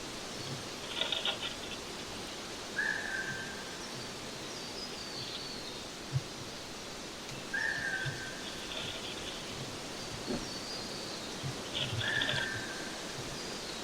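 Birds calling: a short, flat call repeated three times, about every four to five seconds, with brief higher chirps and faint falling whistles between them. Soft low knocks are heard throughout over a steady background hiss.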